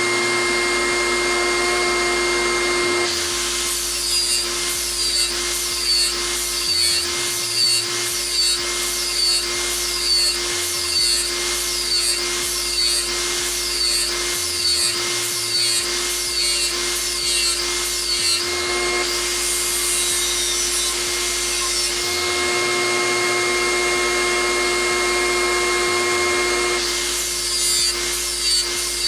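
Bauer 8-amp 4½-inch angle grinder running with a steady whine while grinding the edge of a steel lawn mower blade in quick repeated passes, a little more than one a second. For several seconds past the middle the grinder runs free without cutting, then the passes start again near the end.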